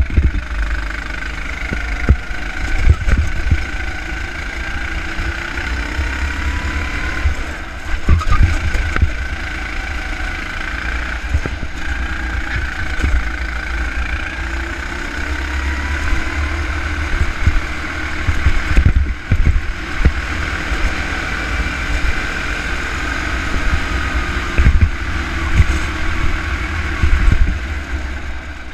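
Go-kart engine heard from a camera mounted on the kart during a fast lap. Its pitch climbs in long stretches and the sound dips briefly about 7 s and 19 s in. Heavy low rumble and frequent knocks run underneath.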